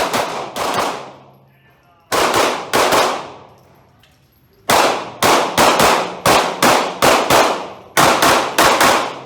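Pistol shots fired in fast strings with short pauses between them: a couple at the start, three about two seconds in, a rapid run of about ten from near the middle, and four more near the end, each shot echoing.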